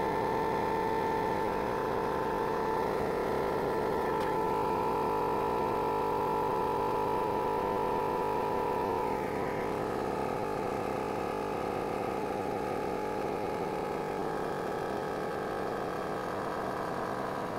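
Small 12-volt air pump running steadily on a nearly flat lithium battery, drawing about 65 amps. It is getting weaker as the battery runs down, and its note drops slightly about halfway through.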